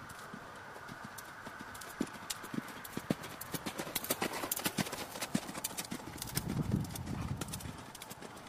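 Hoofbeats of a horse cantering on sand arena footing, a quick run of dull thuds. They are loudest in the middle as the horse passes close by, with a low rumble under them late on.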